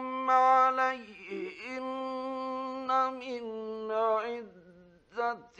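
A man reciting the Quran in a melodic chanting style, drawing out long held notes with short gliding ornaments and pausing briefly for breath, from an archival 1950s radio recording.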